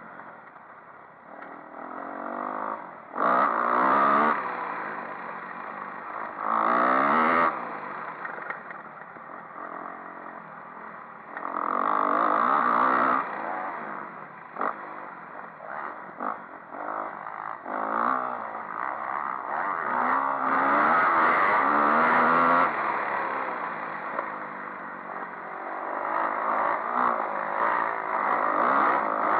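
Dirt bike engine revving up and down as it is ridden on a motocross track, its pitch climbing and dropping repeatedly with several surges of hard throttle, mixed with short knocks and rattles from the bumpy ground.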